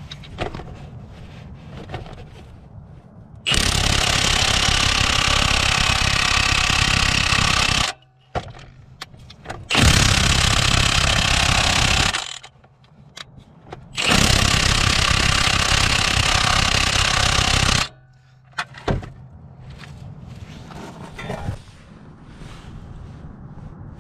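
Milwaukee M18 Fuel 2767 half-inch cordless impact wrench hammering on a 19 mm Honda crankshaft pulley bolt through a heavy-weight welded socket, in three long bursts of about four, two and four seconds.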